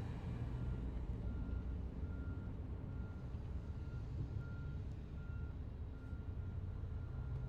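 Reversing alarm of a construction vehicle beeping steadily, about once every 0.7 seconds, over a steady low rumble of engines and machinery, heard muffled from inside a parked car.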